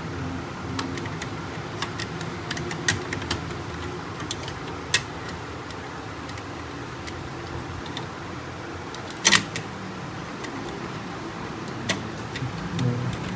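Plastic clicks and knocks from the housing parts of a Canon MF4820d laser printer being handled and fitted back together, with a loud double click about nine seconds in, over a steady low hum.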